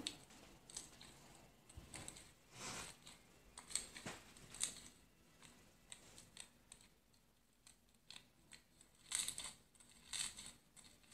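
Glossy slime being poked and squeezed by fingers, making irregular soft clicks, pops and crackles as air pockets in it burst, with louder flurries about a third of the way in and near the end.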